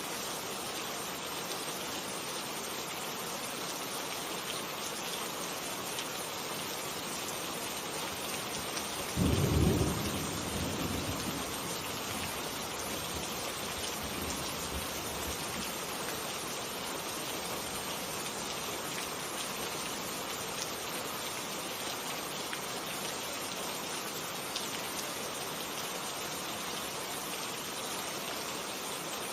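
Steady heavy rain falling, with one sudden clap of thunder about a third of the way through that rumbles and fades over a few seconds.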